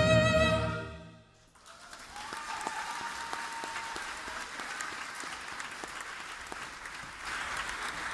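A woman's high held sung note fades out about a second in; after a brief hush, an audience applauds, growing louder near the end.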